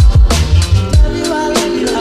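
Background music with a heavy electronic beat: deep bass-drum hits that drop in pitch, over held bass notes and a melodic line.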